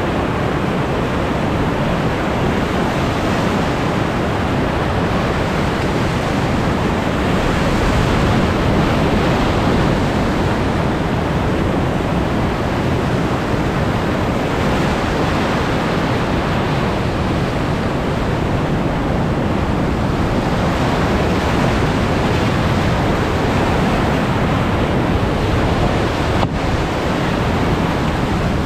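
Whitewater rapids rushing around a cataraft as it runs them, a loud, steady roar of churning water.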